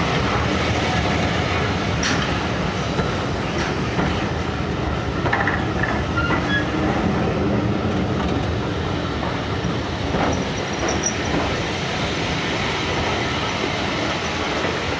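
LMS passenger coaches of a steam-hauled train rolling past close by, their steel wheels running and clattering over the rail joints. There are a few short, faint squeals from the wheels or brakes.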